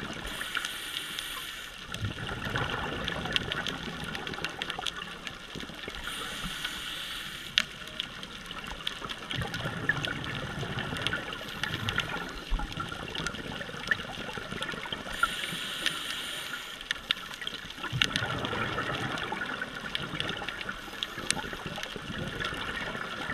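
Scuba regulator breathing heard underwater: a hissing inhale followed by a bubbling rush of exhaled air, repeating about every eight seconds, over a constant crackle of small clicks in the water.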